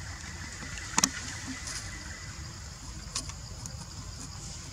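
Steady low outdoor rumble with a faint high hiss, broken by a sharp double click about a second in and a fainter click near three seconds.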